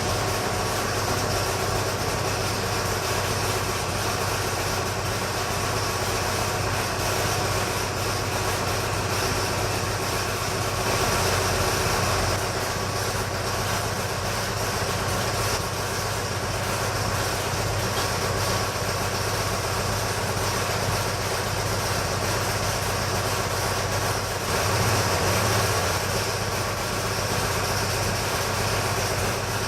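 Armstrong Siddeley AS2 two-cylinder diesel engine running steadily, with two brief swells in level.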